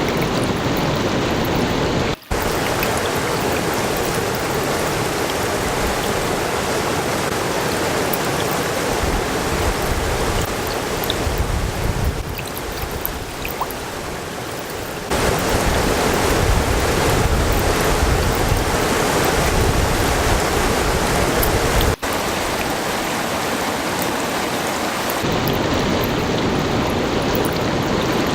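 Flowing water rushing steadily, in several joined clips: the sound drops out briefly about two seconds in and again near twenty-two seconds, and changes its character about halfway through.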